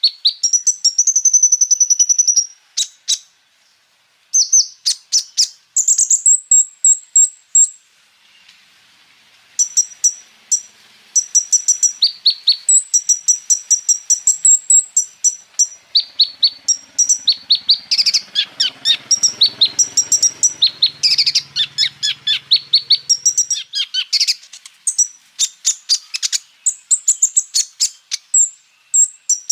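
Kolibri ninja (konin), a small sunbird, singing a rapid string of high-pitched chirps and rolling trills with sharp repeated notes, pausing briefly about eight seconds in.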